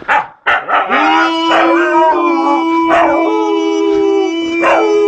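A husky gives a few short yips, then howls in a long, steady held note from about a second in. A second, slightly higher howl joins a little past three seconds, so two voices howl together.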